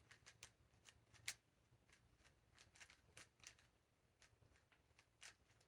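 Faint, irregular clicking of a QiYi Thunderclap V3 magnetic 3x3 speed cube being turned by hand, its layers snapping into place several times a second, the sharpest click about a second in.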